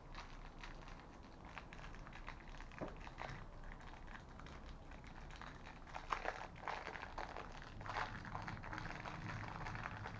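Small plastic toy glider parts being handled and pressed together by hand: scattered light clicks and crinkles, busier from about six seconds in.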